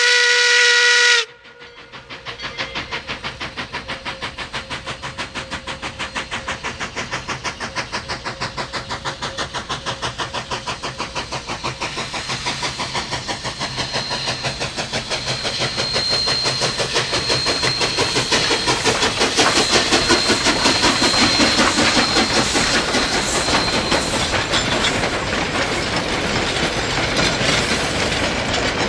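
Narrow-gauge steam locomotive: its whistle sags in pitch and cuts off about a second in, then the engine works hard with fast, even exhaust chuffs that grow louder as it draws near and passes. The freight cars' wheels clatter over the rail joints, with a thin high squeal from the wheels in the middle.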